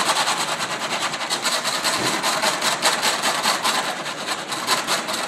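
Wire whisk beating egg and milk into an egg wash in a disposable aluminium foil pan: fast, even strokes clattering and scraping against the foil, about six a second.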